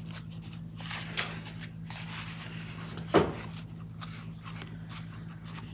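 Light rustling and tapping from handling a paper planner and sticker sheets on a table, with one sharp knock about three seconds in, over a steady low hum.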